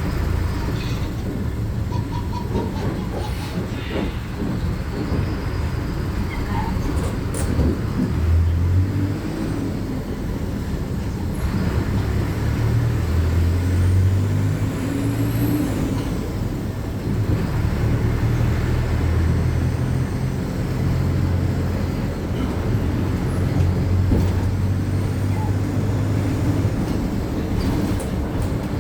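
Inside a moving city bus: the engine's low drone rises and falls as it pulls away and slows, over a steady road rumble, with a few clicks and rattles from the cabin.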